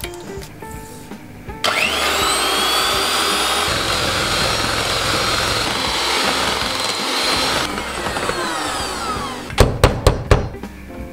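Electric hand mixer whipping cream in a stainless steel bowl: the motor starts about a second and a half in with a rising whine, runs steadily for several seconds, then is switched off and winds down. Near the end, a few loud knocks as the beaters are tapped on the steel bowl. Background music plays throughout.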